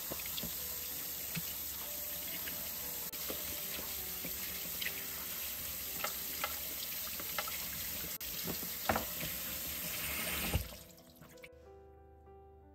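Kitchen tap running, with water splashing over strawberries in a plastic colander basket and a few knocks and clunks as the berries and basket are handled. The water shuts off about eleven seconds in.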